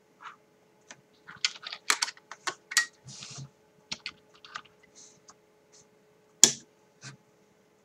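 Irregular clicks and knocks of a plastic radio-controlled toy car being handled on a wooden tabletop, with one louder knock about six and a half seconds in.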